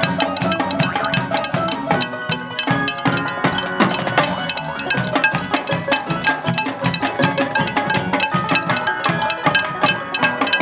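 Frying pans drummed rapidly with wooden drumsticks: a dense run of quick metallic strikes with ringing tones.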